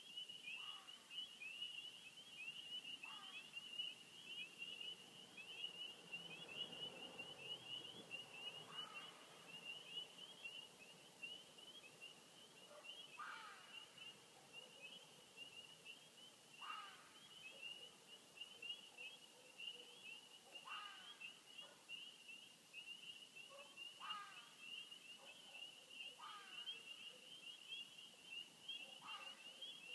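An unidentified animal giving short, faint cries that fall in pitch, repeated every few seconds, over a continuous high-pitched chirring.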